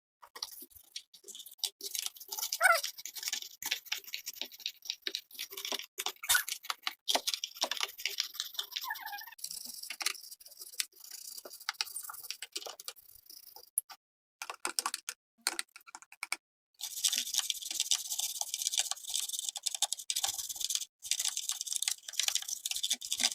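Plastic keycaps being scrubbed with a small damp brush: quick scratchy brushing strokes mixed with small clicks and knocks of plastic. The brushing becomes steadier and denser after about seventeen seconds.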